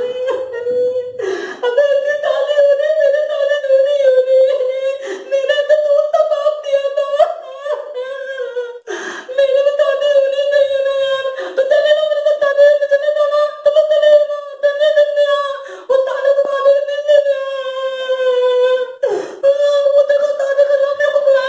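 A young man's acted crying: loud, high-pitched wailing in long drawn-out cries, with short breaks for breath every few seconds.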